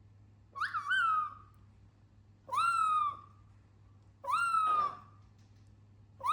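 A pet bird calling four times, about every two seconds. Each call is a clear whistled note that rises quickly and then holds, and the first one breaks into two parts.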